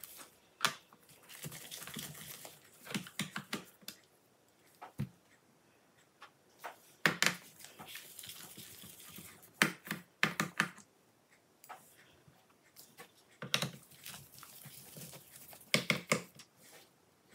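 Screwdriver and small screws worked on a laptop's plastic bottom cover: irregular sharp clicks and taps with short scratchy scrapes as the cover screws are undone and set down.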